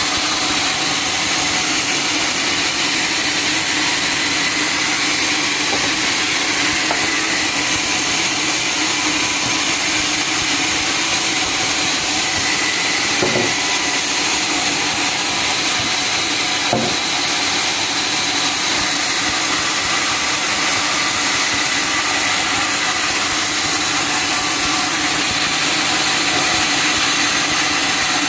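Sawmill saw and its engine running steadily, cutting through a teak log, with a faint knock or two midway.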